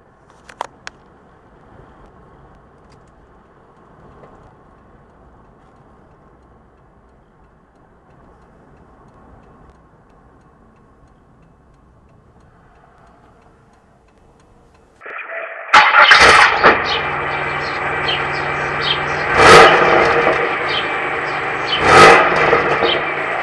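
Faint background hiss with a brief click, then about 15 s in a Pontiac Grand Prix GT's 3.8-litre V6 cranks and starts through its exhaust. It settles into a loud idle and is revved three times, a couple of seconds apart.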